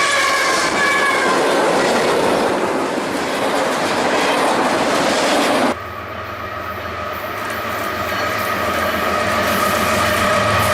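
Train rolling past on the rails, with steady high tones over the wheel and car noise that fade out in the first couple of seconds. A little past halfway the sound cuts abruptly to another stretch of passing train, again carrying steady tones.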